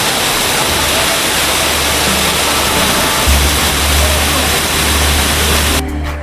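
Steady rush of a waterfall, cutting off abruptly near the end. Deep bass notes of background music come in about a second in and grow louder about halfway through.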